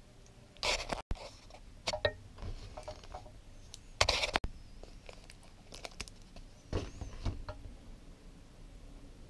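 Close handling noises in several short bursts: crinkling and rustling of a plastic-and-card blister pack of UHU Patafix adhesive putty, loudest about four seconds in, with smaller rustles and taps from hands and fingers.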